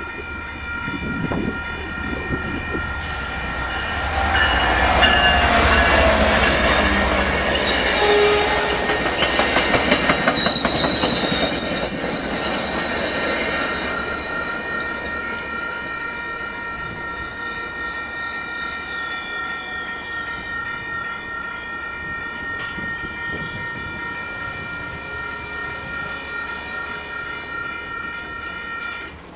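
Railroad crossing bells ring steadily while an MBTA commuter rail train passes. The train's rumble and wheel clatter build from about four seconds in and peak around ten to twelve seconds, with a high wheel squeal. The train sound fades away by about sixteen seconds, leaving the crossing bells ringing on their own.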